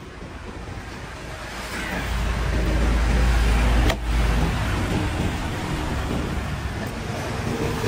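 A motor vehicle passing on the road: a low rumble building over the first few seconds. About four seconds in there is one sharp knock, a wooden club struck on the back of a fish-cutting knife to drive it through the fish.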